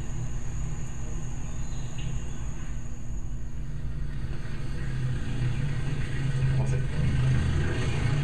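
Car engine and road noise heard from inside the cabin: a steady low rumble that grows louder about five seconds in, played through a room's speakers and picked up again.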